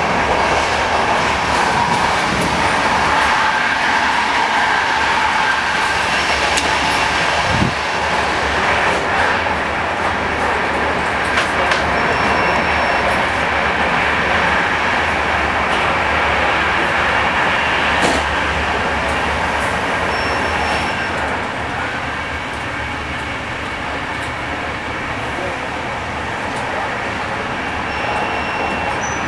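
Steady running noise of a moving type 156A passenger coach heard from inside the carriage: wheels on rails and air noise, with a few sharp clicks and knocks.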